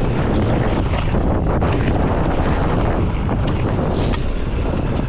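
Wind rushing over the microphone on a mountain bike riding downhill, with the bike clattering over rough ground in quick, irregular clicks and knocks.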